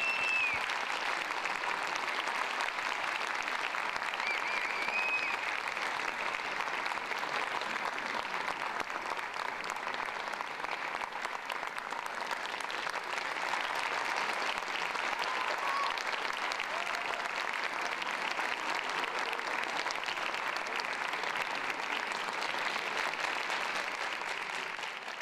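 Theatre audience applauding steadily, with a couple of brief high calls from the crowd near the start, fading out at the end.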